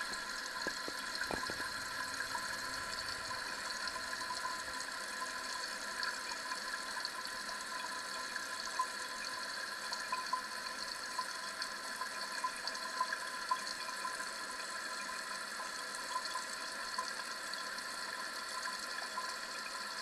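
Toilet tank fill valve running as the tank refills after a flush: a steady hiss of water with a faint whistling tone.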